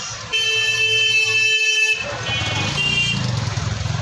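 Vehicle horn held in one steady honk of about a second and a half, cutting off sharply, followed by a few shorter high ringing tones.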